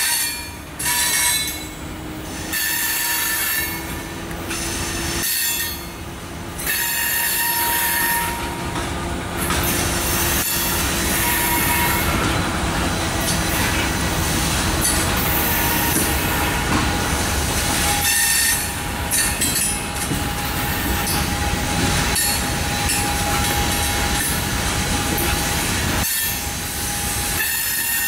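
Loaded coal hopper cars rolling past, steel wheels running on the rail with a constant rumble and clatter, and high-pitched wheel squeal that comes and goes.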